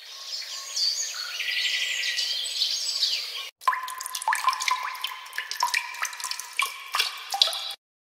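Two short sound effects in a row: first a few seconds of high chirping and twittering, then water drops plinking irregularly, several a second, each with a short ringing tone.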